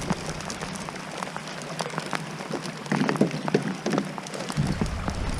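Rain pattering on the kayak and water, with many sharp ticks of drops striking close by. A low hum comes back in near the end.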